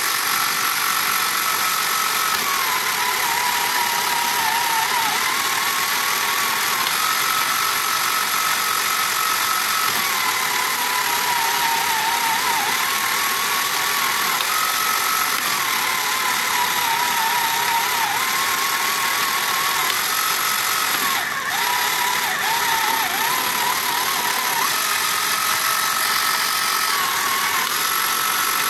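The small electric motor and plastic gear train of a 1979 Tomy Hit and Missiles toy running, a steady whirring whine that dips in pitch and comes back up every few seconds, with a brief break about 21 seconds in. The mechanism is running again on its replacement motor after the gears were reset.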